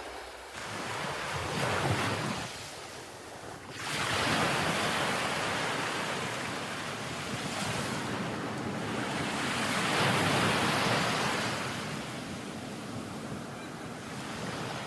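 Sea surf breaking on a sandy beach, the rush of the waves swelling and falling back every few seconds.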